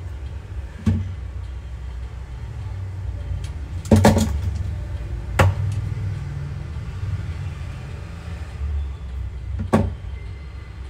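Sharp metallic clicks and knocks from the HP Envy x360 13's steel laptop hinge being adjusted with needle-nose pliers and handled: one about a second in, a loud cluster about four seconds in, and single clicks near the middle and near the end. A steady low rumble runs underneath.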